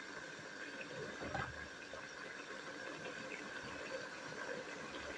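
Tomato and vegetable sauce simmering in a nonstick pan: a soft, steady bubbling hiss.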